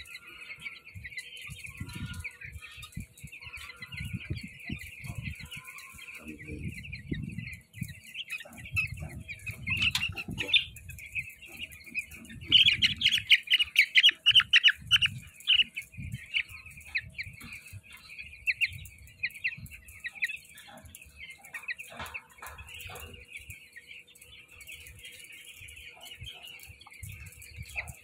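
A flock of 11-day-old broiler chicks peeping continuously, a dense chorus of high cheeping that gets louder for a few seconds around halfway as chicks close by call. Low irregular bumps are heard in the first half.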